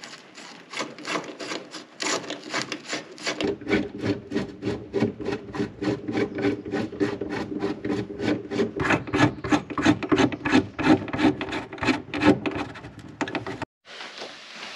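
Screw being driven into a boat rod holder's mounting flange with a T-handle Allen key: a rhythmic rubbing squeak, about four strokes a second, that stops abruptly near the end.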